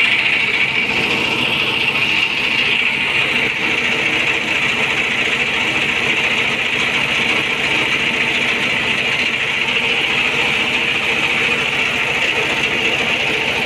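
Diesel generator (genset) running steadily at constant speed, with a fast even low throb and a steady high hiss over it.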